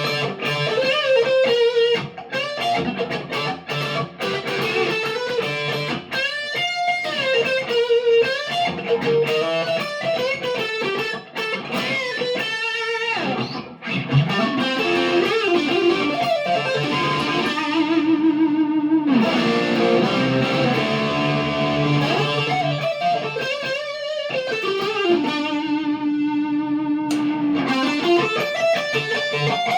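PRS McCarty 594 Hollowbody II electric guitar played through a Marshall DSL40C amp: single-note lead lines with string bends and slides, and wide vibrato on long held notes.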